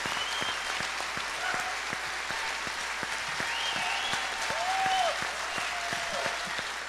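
Audience and band applauding: dense, steady hand-clapping.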